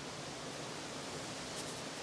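Steady, even rushing hiss of a thunderstorm's rain and wind.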